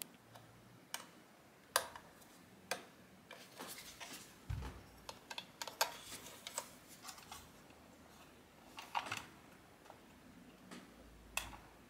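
Irregular light clicks and taps of small plastic and metal parts being handled on a workbench while working on a 1:16-scale RC crawler, with a short dull thump about four and a half seconds in.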